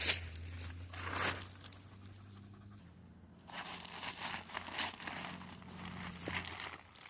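Rustling and crinkling handling noises in several short bursts, over a faint steady low hum.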